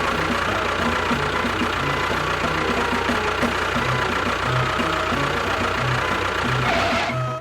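Engine running steadily with a regular low knocking pulse, about two beats a second, typical of a miniature DIY tractor or bulldozer at work. The sound shifts just before the end.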